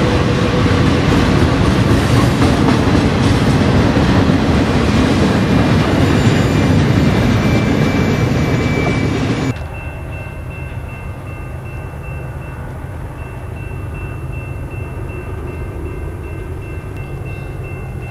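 Freight train autorack cars rolling past close by, a loud steady rumble and rattle of wheels on rail. About halfway through it cuts off abruptly to a much quieter, distant train rumble with a faint steady high tone.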